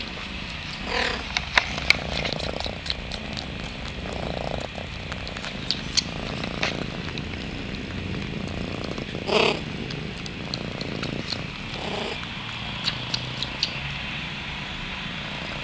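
Thai cats purring with a steady low rumble. Small clicks and a few brief higher-pitched sounds come through it, the loudest a little past the middle.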